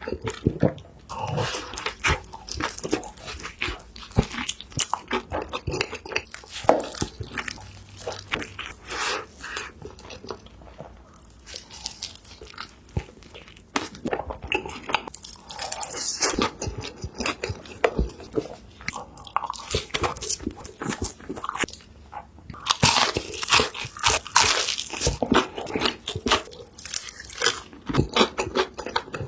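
Close-miked eating: crunchy bites and wet chewing of fast food, with many sharp crackles that come thickest near the end.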